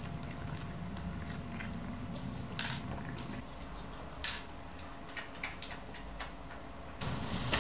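A cat eating dry treats from a plastic puzzle feeder: a few sharp clicks and crunches, the clearest about two and a half seconds in and again just after four seconds.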